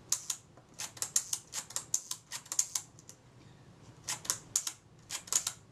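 A Kodak Retina IIIc leaf shutter being cocked and released by hand again and again, making clusters of sharp little metallic clicks. The clicks come from the retard gear train, just adjusted to set the slow-speed timing, which the repairer now judges a bit slow.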